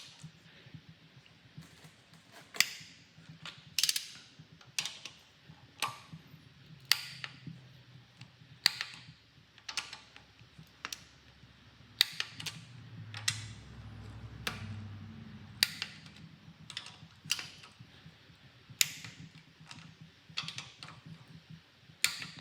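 Click-type torque wrench ratcheting on the smaller cylinder head bolts of an LS3 V8 as they are run down to 25 pound-feet: a run of sharp single clicks, about one a second at uneven spacing.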